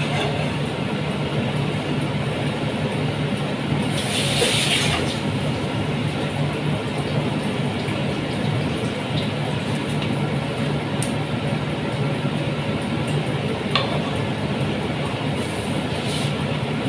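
Pot of water with chicken pieces at a rolling boil on an electric hotplate, a steady bubbling with a low steady hum underneath and a brief louder hiss about four seconds in.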